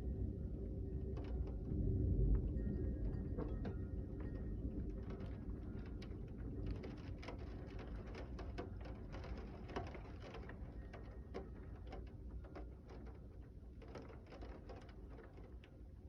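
Deep rolling thunder rumbling and slowly dying away, with scattered raindrops ticking and pattering.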